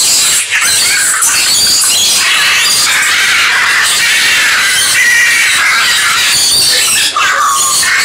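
A dense, unbroken chorus of many birds chirping and squeaking over one another, high-pitched throughout.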